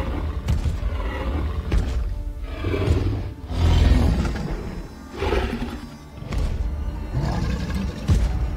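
Tyrannosaurus rex growls and a low roar from a film's sound design, loudest about four seconds in, over dramatic background music.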